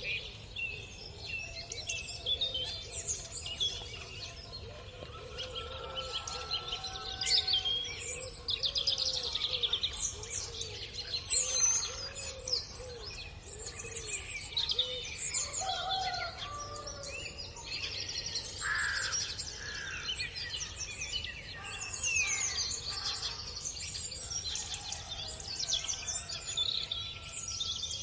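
Many small birds singing and chirping at once in a morning chorus, with overlapping trills and quick high notes. A lower-pitched call repeats for several seconds in the first half, over a steady low background rumble.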